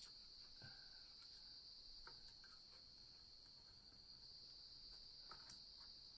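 Near silence: a faint steady high-pitched tone, with a few faint small clicks from small metal parts being handled.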